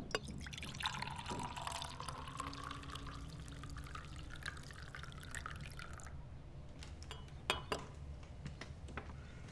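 Tea poured from a glass teapot into a glass cup: a splashing stream whose pitch rises slowly as the cup fills, stopping about six seconds in. A couple of sharp clicks follow near the end.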